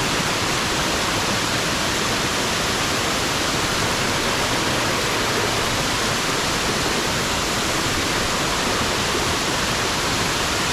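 Waterfall: falling water rushing steadily, an even hiss with no changes.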